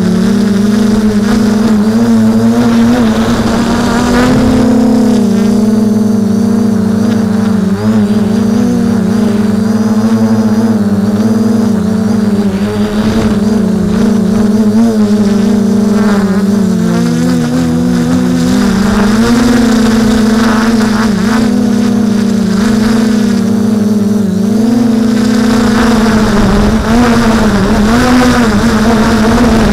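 A drone's electric motors and propellers humming steadily in flight, heard close up from the camera it carries; the pitch wavers as the motors adjust and dips briefly about halfway through.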